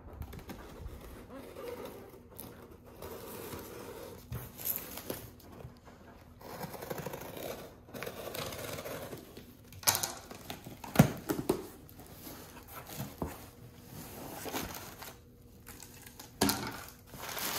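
A cardboard package being opened by hand: tape scraping and tearing, and cardboard and paper packing rustling, with a couple of sharp knocks about two-thirds of the way through.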